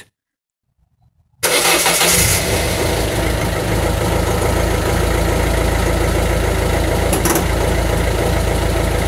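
Peugeot 1.6 HDi four-cylinder turbo-diesel started from cold: it catches suddenly about one and a half seconds in, then settles into a steady idle.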